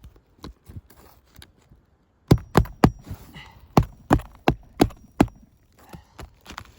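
Hammer blows on a shingle roof: three quick strikes about two seconds in, then five more at an even pace.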